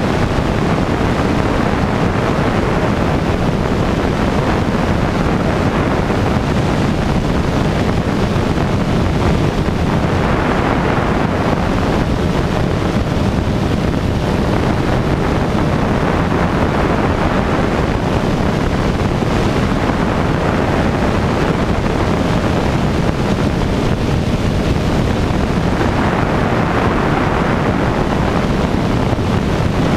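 Rainbow Aircraft Cheetah light aircraft in cruise flight: a steady engine and propeller drone mixed with heavy wind noise on the microphone, which swells twice.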